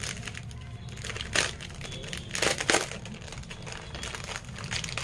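Clear plastic packaging crinkling and crackling in irregular bursts as hands pull it open, loudest just past the middle.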